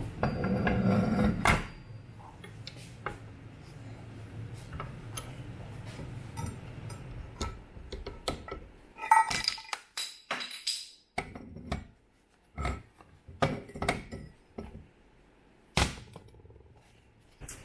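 Metal knocks and clinks as a heated flywheel is worked loose and lifted off a Triumph 650 unit crankshaft clamped in a steel bench vise, with a burst of handling noise at the start and a run of sharp knocks in the second half.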